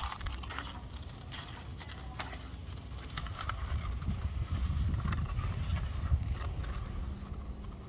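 Scissors cutting a sheet of paper with irregular crisp snips, over a steady low rumble that swells slightly midway.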